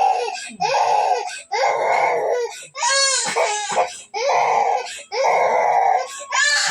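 A small child crying hard while being massaged, in a run of about seven cries, each about a second long, with short catches of breath between them.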